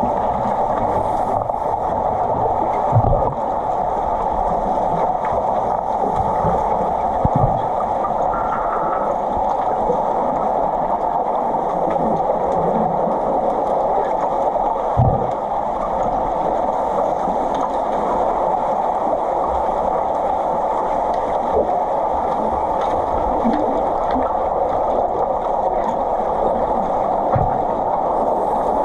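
Muffled underwater pool ambience heard through a submerged camera: a steady rushing water noise, with a few dull low thumps.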